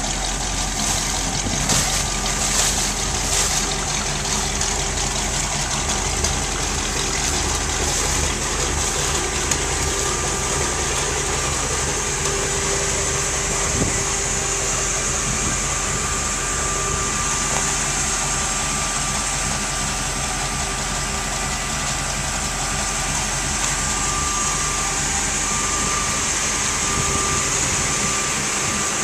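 Diamond T truck's engine idling steadily.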